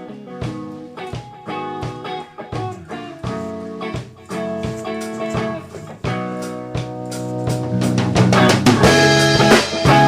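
Background music led by guitar over a steady drum beat, growing louder near the end.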